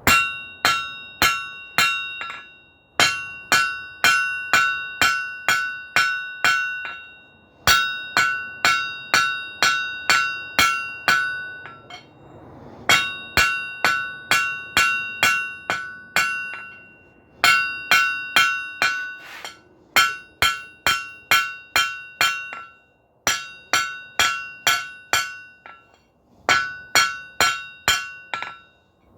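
Hand hammer striking hot 3/4 inch mild steel square bar on an anvil, knocking the corners in: about eight runs of quick blows, roughly two to three a second, each blow ringing clearly, with short pauses between the runs.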